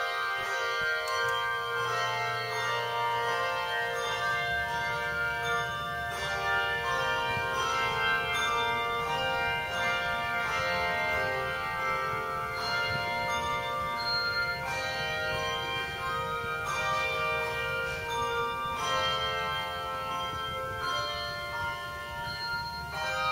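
Handbell choir playing a piece: chords of ringing bells, newly struck every second or two, each ringing on and fading.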